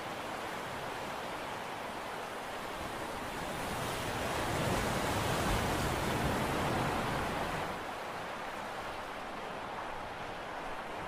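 Steady rushing noise of wind and sea, swelling louder for about four seconds in the middle before settling back.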